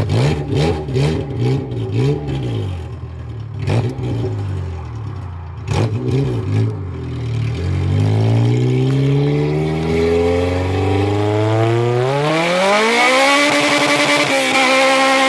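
K-swapped Honda Civic's four-cylinder engine, heard from the car. For the first several seconds its note rises and falls, with a few sharp knocks. Then it climbs in revs in one long rise under hard acceleration, a hiss building as it nears the top, and holds high near the end.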